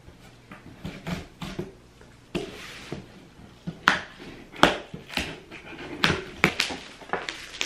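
A cardboard shipping box being opened by hand: scissors slitting the packing tape, then the tape and flaps pulled apart in a run of sharp rips and snaps. They grow louder from about four seconds in.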